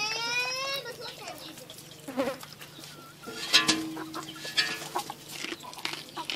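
Barnyard animal calls from a chicken and a goat: a rising call at the very start, then several more calls, over a low steady hum and scattered clicks.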